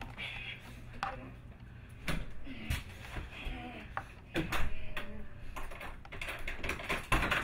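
Scattered clicks and knocks from a front door's keypad deadbolt and handle being worked, with crutches bumping, and a louder clatter near the end.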